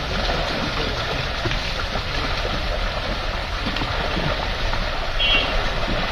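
Steady rush and gurgle of moving water, with a brief high chirp about five seconds in.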